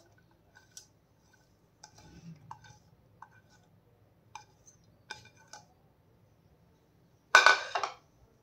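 A plate clinking and tapping lightly against the rim of a bowl as sliced onions and herbs are scraped off it, then a louder clatter near the end as the plate is set down on a stone counter.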